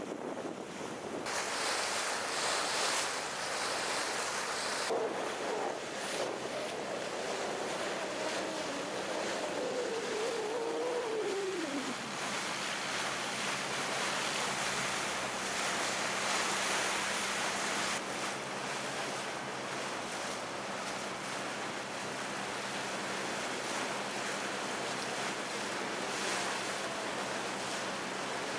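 Wind buffeting the microphone and water rushing past the hull of a moving river tour boat, over a steady low engine hum. A faint wavering tone sounds from about five seconds in and falls away about twelve seconds in.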